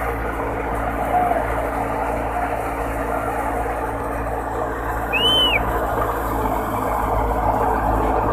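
Tractor-driven wheat thresher running steadily, with one short high whistle about five seconds in.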